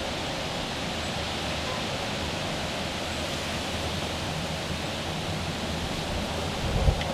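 Steady rushing noise, with a few low thumps near the end.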